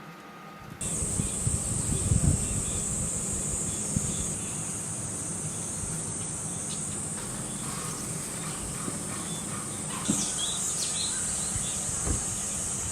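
Insects buzzing in a steady, shrill drone, cutting in about a second in, with a few low knocks and thumps along the way.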